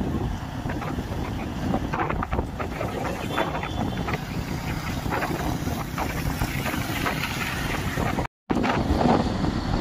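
Road and wind noise from a moving vehicle, with wind buffeting the microphone in a steady rumbling rush. The sound cuts out briefly about eight seconds in.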